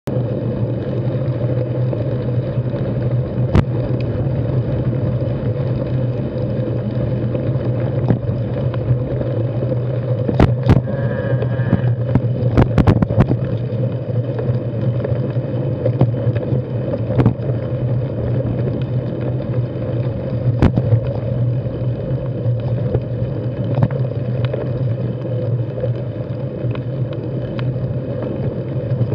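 Steady rolling noise of a carbon 6Fattie mountain bike riding a rocky dirt singletrack, heard through a bike-rider's action camera: tyre and wind rumble with occasional sharp knocks and rattles from rocks, a cluster of them about halfway through.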